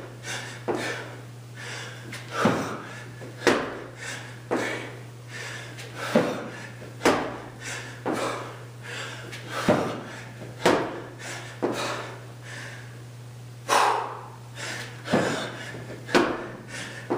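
A person doing burpees on a concrete floor: thuds of hands and feet hitting the floor and landing from the jump, about one a second in groups of three, one group per repetition.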